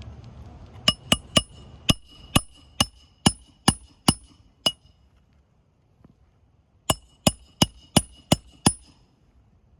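Hammer driving roofing nails into shingles with sharp, ringing metal-on-metal strikes. A run of about ten strikes is followed by a pause, then six more in quick succession.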